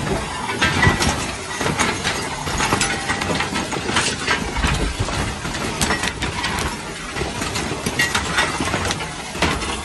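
Blocky lava flow front advancing: a steady rumble and hiss, dotted with many sharp crackles and clinks as cooling lava crust breaks and tumbles.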